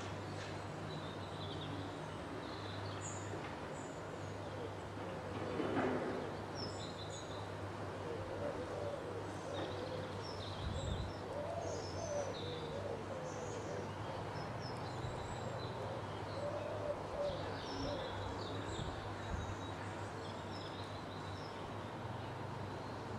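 Songbirds chirping and singing, with short high calls scattered throughout over a steady low hum. One louder, fuller sound comes about six seconds in.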